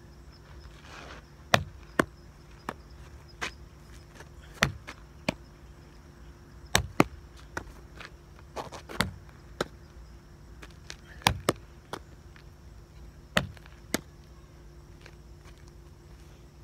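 An irregular series of sharp knocks from a ball striking hard surfaces, some coming in quick pairs, stopping a couple of seconds before the end.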